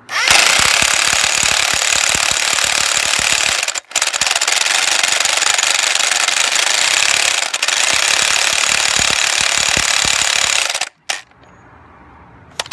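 Pneumatic impact wrench hammering the front axle hub nut of a 1997 Jeep Cherokee XJ tight. It runs in two long bursts, about three and a half seconds, a brief break, then about seven seconds more.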